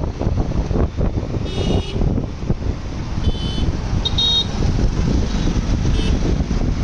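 Wind rushing over the microphone and steady traffic noise while riding a motorcycle through city traffic, broken by short, high vehicle horn beeps: one about one and a half seconds in, two more between three and four and a half seconds, and a brief one near six seconds.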